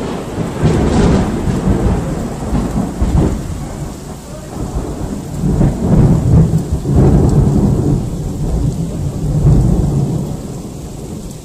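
Thunder rolling and rumbling loudly for several seconds over steady rain. It swells again about six and nine and a half seconds in, then dies away near the end.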